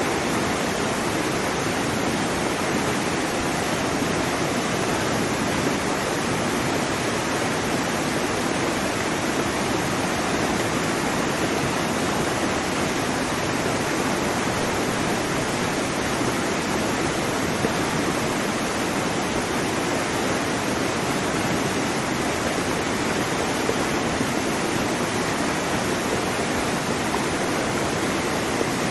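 Waterfall: water pouring and splashing in a steady, even rush with no change.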